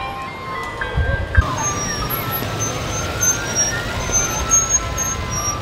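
Parade vehicles rolling slowly past, with a siren wailing in slow rising sweeps from about a second and a half in. At the start the tail of a tinkling ice-cream-truck jingle is heard.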